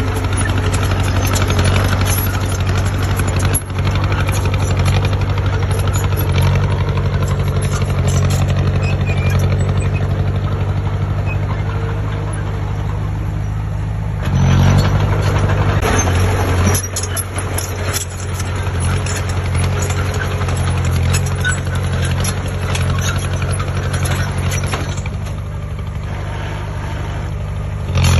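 Heavy diesel construction machine running steadily under load, with a brief rise in engine sound about halfway through.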